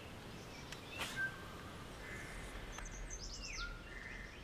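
Faint birdsong: scattered chirps, with a quick run of falling whistled notes around the middle followed by shorter, lower notes. A faint click or two about a second in.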